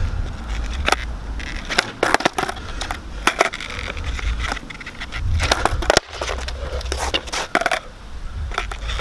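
Skateboard deck and wheels knocking and clacking on asphalt, a rapid irregular string of sharp clacks as the rider steps on, pops and lands the board during kickflip attempts.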